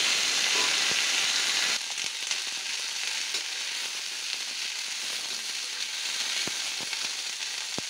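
Soaked black chickpeas frying with onions in hot mustard oil in a kadhai, sizzling as they are stirred. The sizzle is loud at first and drops sharply after about two seconds, then goes on more quietly, with a few clicks of the metal spatula against the pan near the end.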